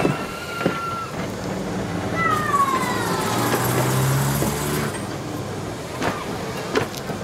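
Vintage Blackpool & Fleetwood open crossbench tram passing slowly close by, its motors humming. Its wheels knock over the rail joints in two pairs, near the start and near the end, and about two seconds in a squeal from the wheels falls in pitch.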